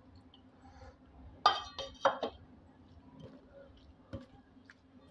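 Serving bowl clinking against a steel dinner plate as vegetable sabzi is tipped out of it: a cluster of sharp, ringing clinks about a second and a half in and another just after two seconds, then a few faint ticks.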